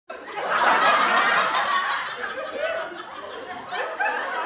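Several people laughing and talking over one another, loudest in the first two seconds.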